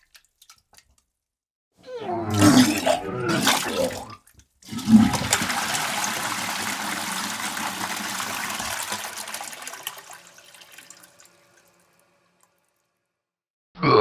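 A person retching and vomiting for about two seconds, followed by a toilet flushing, starting suddenly, rushing for several seconds and fading out.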